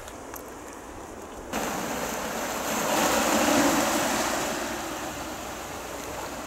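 Sea surf washing on a rocky shore: a steady rush that starts abruptly about one and a half seconds in, swells to its loudest near the middle and slowly fades.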